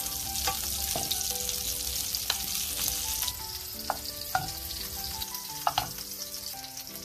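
Hilsa fish steaks sizzling in shallow oil in a frying pan, with a few sharp clicks of a spoon as the pieces are lifted out. The sizzle eases about three seconds in.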